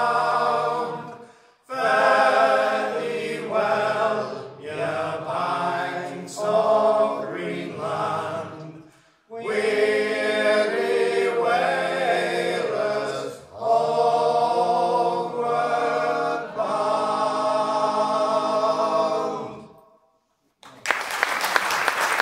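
Three men singing a folk song together in harmony, in long phrases with short breaths between them. The song ends about 20 seconds in, and after a moment's pause the audience starts applauding.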